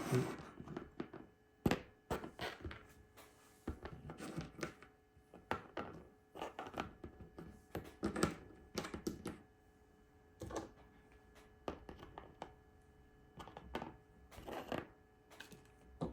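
Small plastic GOGOs figures being handled and set down one after another on a surface: irregular light clicks and taps with short pauses between them.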